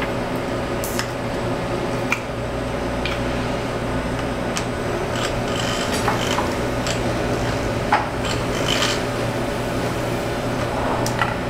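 Vortex-Genie vortex mixer running with a tube of frozen fruit flies pressed on it, a steady motor buzz with the tube's contents rattling; the shaking is what breaks the heads off the bodies. A few short clinks are scattered through it.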